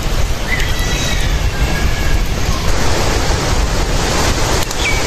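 Steady wind rumble buffeting the microphone, with a couple of short high chirps over it.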